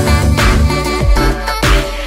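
Background music: a loud electronic track with a heavy bass and a steady drum beat.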